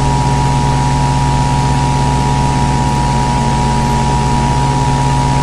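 Emergency Alert System two-tone attention signal: two steady tones sounding together, heard over a loud, steady hiss and low hum. The tones cut off near the end.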